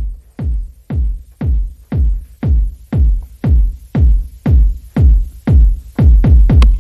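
Background electronic dance music with a steady kick drum at about two beats a second and a quick run of extra drum hits near the end.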